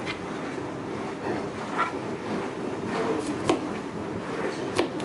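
Kitchen knife cutting broccoli florets on a plastic cutting board: a few sharp knocks of the blade meeting the board, over a steady background noise.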